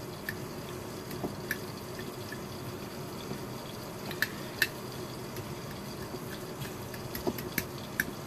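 Fork mashing avocado on a ceramic plate, the tines clicking lightly against the plate at irregular moments, over the steady low sizzle of bell peppers cooking in butter in a lidded pan.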